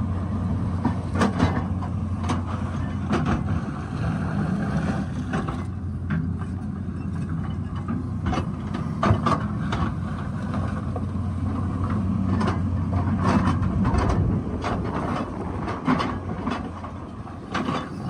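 Excavator backhoe's diesel engine running steadily under load, with irregular sharp knocks and clanks of the bucket and rock.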